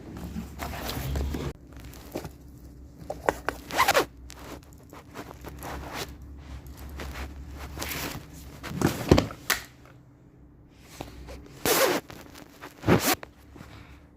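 Packaging being opened by hand: a series of short, rasping, zip-like pulls and scrapes, the sharpest about 4, 9, 12 and 13 seconds in.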